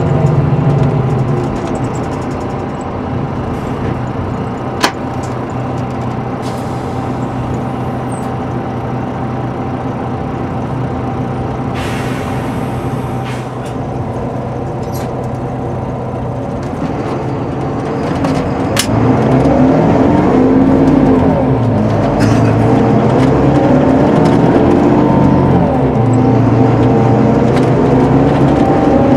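Volvo B9R coach's rear-mounted six-cylinder diesel heard from inside the passenger saloon: it eases off about a second in and runs quietly, then about two-thirds of the way through it pulls harder, its pitch rising and falling as the I-Shift automated gearbox changes gear. A sharp click early on and a brief hiss near the middle.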